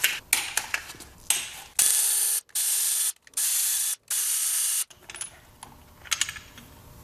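Power ratchet running in four short bursts of about half a second each, spinning out 13 mm bracket bolts on an engine. Light clicks of the socket and bolts being handled come before and after the bursts.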